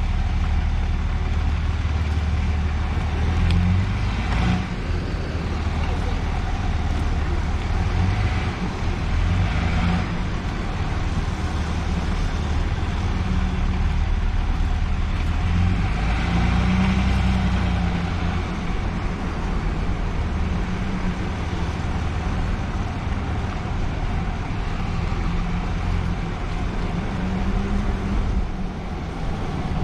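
Steady low rumble of wind and tyre noise while riding a Lectric XP e-bike on the road.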